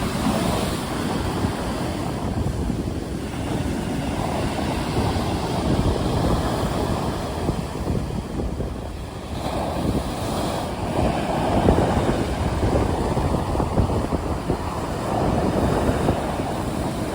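Stormy sea waves breaking and washing in repeated surges, with wind rushing over them.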